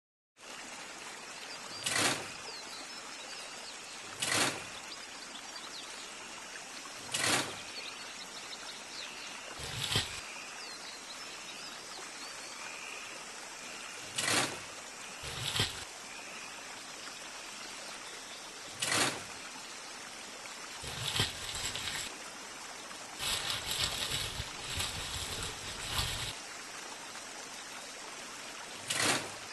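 Steady running-stream ambience with a sharp knock every two to four seconds and a quicker run of knocks about three quarters of the way through.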